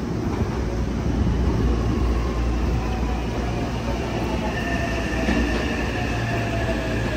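Hankyu electric train running, a steady rumble with a thin whine that comes in about halfway through and falls slightly in pitch.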